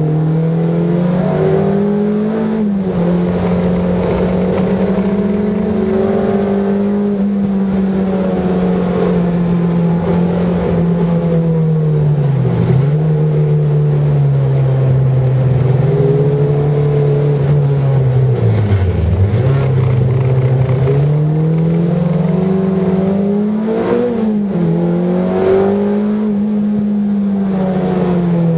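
Car engine heard from inside the cabin, its pitch rising and falling repeatedly as the driver accelerates, lifts off and changes gear around a track, dipping lowest about two-thirds of the way through.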